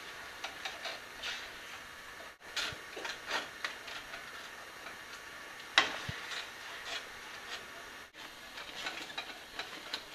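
Spatula scraping and tapping against a nonstick pan while stirring a thick paneer, milk-powder and milk mixture, with irregular soft clicks and one sharper knock about six seconds in.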